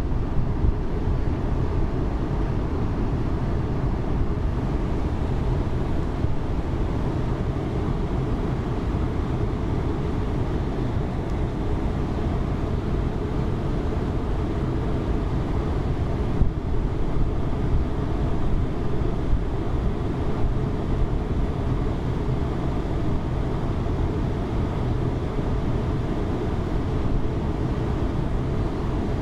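Steady low rumble of a river cruise ship under way, with wind on the microphone.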